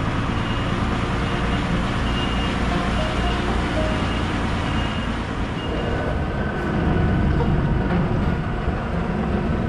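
DAF XF truck's diesel engine running as the truck rolls slowly, heard from outside the cab. A short high beep repeats about every 0.7 s during the first half.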